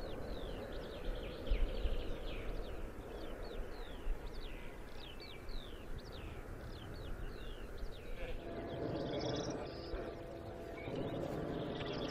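Small birds singing, a quick run of short, high, downward-slurred chirps. Later come two bursts of a rushing noise with a steady low hum, each a second or two long.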